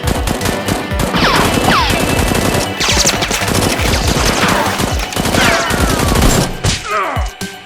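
Sustained rapid gunfire, a dense fusillade of overlapping automatic shots, with several falling whistle-like tones mixed in.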